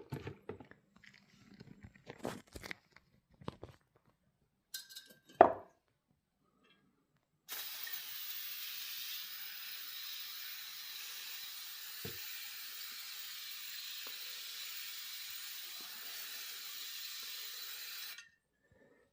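A metal stove-hood grease grate handled with a few clicks and one sharp knock, then an aerosol can of automotive wax and grease remover spraying onto it in one continuous hiss for about ten seconds, stopping suddenly.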